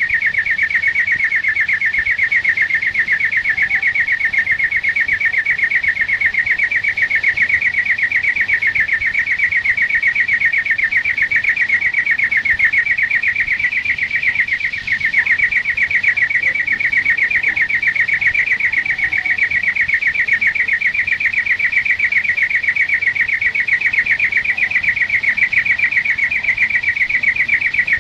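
European greenfinch singing one long, unbroken trill of rapid pulses at a steady pitch, faltering briefly about halfway through.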